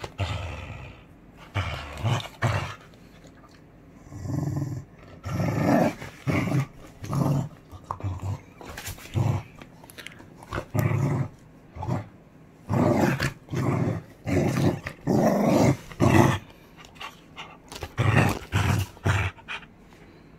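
Beagle growling in repeated short bursts while it tugs on a rubber toy.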